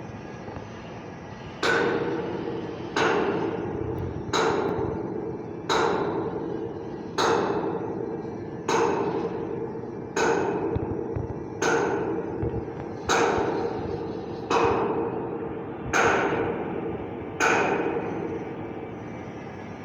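Hammer striking steel twelve times at an even pace, about one blow every second and a half, each blow ringing and dying away before the next.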